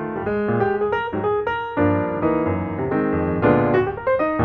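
Piano music: a melody of separate notes over chords, which grow fuller from about two seconds in.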